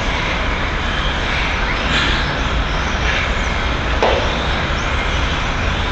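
Steady outdoor noise of road traffic, with radio-controlled on-road cars running on the track, their motors a faint, brief high whine now and then. A short sharp sound comes about four seconds in.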